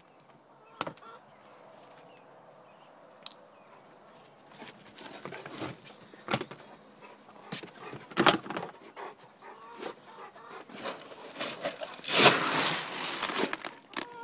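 Footsteps and rustling on grass and dirt: scattered short knocks and scuffs, with a sharp knock about eight seconds in and a longer, louder burst of rustling about twelve seconds in.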